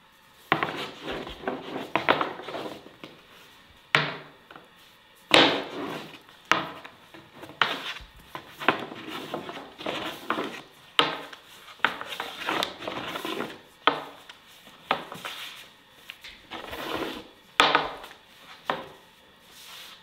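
Food-preparation handling on a wooden surface: irregular rubbing and scraping strokes with a few sharp knocks.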